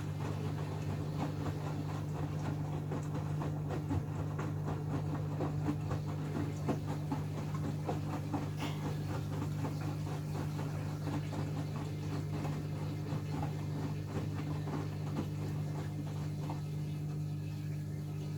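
Hoover Axi 9kg washing machine running, a steady motor hum under irregular splashing and patter of wet laundry tumbling in the drum. The patter thins out near the end.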